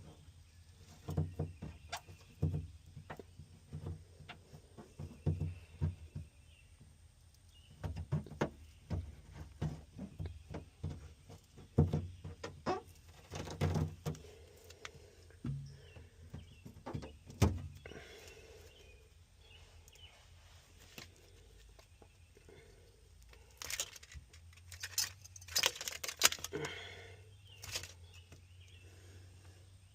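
Irregular knocks, taps and scrapes of hand work prying and peeling sound-deadening mat and its residue off a car's bare metal floor, with a few louder, longer scrapes near the end.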